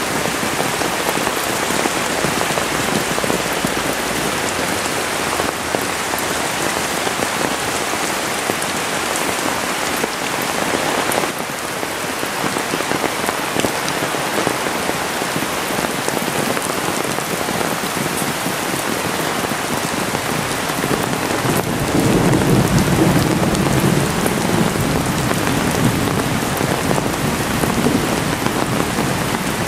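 Heavy rain falling steadily and drumming on an umbrella held overhead. About two-thirds through, a louder, deeper rush joins in for several seconds.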